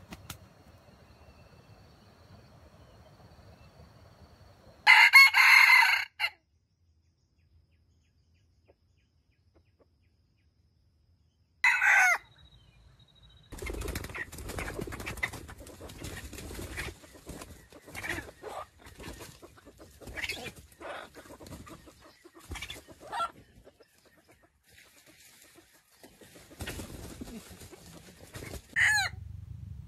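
Junglefowl rooster crowing: one loud crow about five seconds in, then a shorter call near twelve seconds. A run of quieter clucks and short calls follows, and there is one more brief call near the end.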